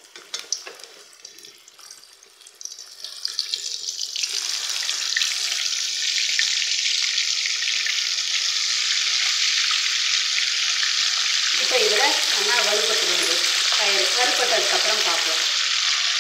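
Damp soaked green gram (whole moong beans) in a wire-mesh strainer deep-frying in hot oil: a few scattered crackles at first, then about four seconds in the oil bubbles up hard around the beans and settles into a loud, steady sizzle.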